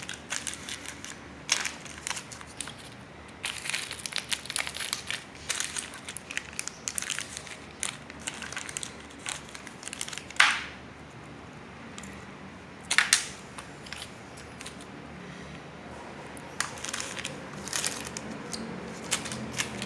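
Rustling and crackling of small control-panel parts and their wrapping being handled, irregular throughout, with two louder short bursts about ten and thirteen seconds in.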